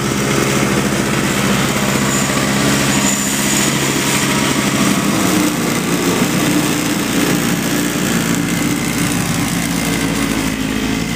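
An engine running steadily, its pitch shifting slightly about halfway through, under a steady rush of blizzard wind.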